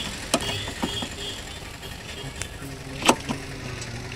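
Sharp clicks and knocks of hand work on a car's clutch fluid reservoir under the bonnet: about four separate clicks, the loudest about three seconds in.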